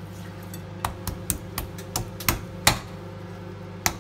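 Hot frying pan popping and spitting as wet raw meat is pressed into it by hand: about eight sharp, irregular pops over a steady low hum.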